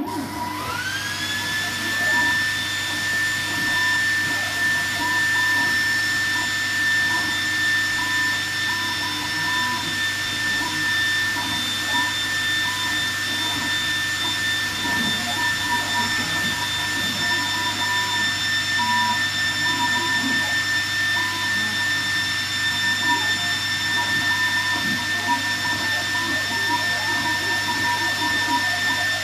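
A diode laser engraver, the AlgoLaser Alpha MK2 20W, starting a slow test engraving. A fan spins up within the first second to a steady high whine with a low hum under it. The stepper motors chirp and buzz irregularly as the head moves at 10 mm/s.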